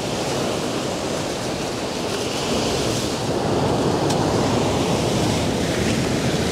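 Ocean surf breaking and washing among large rounded boulders on a rocky shore: a steady rush of waves.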